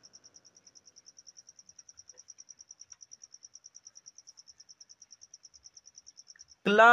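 Insect trilling: a steady high-pitched pulsing, about ten pulses a second, that stops shortly before the end.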